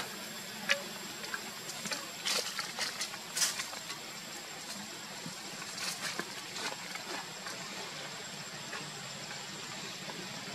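Outdoor forest background: a steady hiss with a faint steady high tone, and scattered soft clicks and rustles, busiest about two to four seconds in and again around six seconds in.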